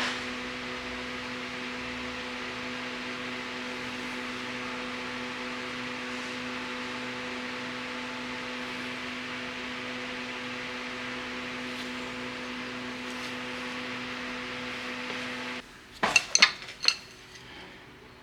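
A steady hum with hiss that cuts off suddenly near the end, followed by a quick run of sharp metallic clinks, like steel tools or parts knocking together.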